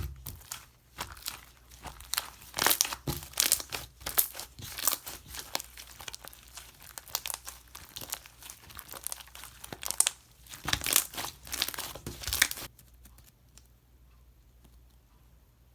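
Slime being worked by hand, giving off dense crackling, crinkling snaps that stop abruptly about thirteen seconds in.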